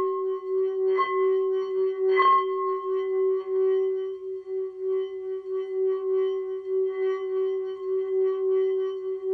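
Large metal singing bowl ringing a steady low tone with several overtones. It is struck softly with its mallet twice in the first few seconds, and then the mallet is worked around the rim to keep the tone going, the loudness pulsing and wavering.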